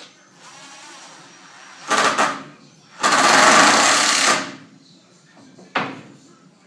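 Handheld power tool run in three bursts: a short one about two seconds in, a longer one of about a second and a half, and a brief one near the end.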